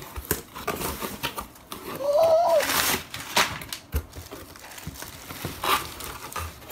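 Cardboard box being opened by hand: flaps scraping and knocking, with scattered taps and a louder scraping rustle about two seconds in. A soft plastic-wrap rustle comes near the end.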